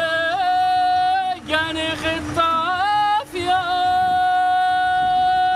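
Men singing a traditional Amazigh wedding chant in long held notes, with two short pauses and a few small steps in pitch.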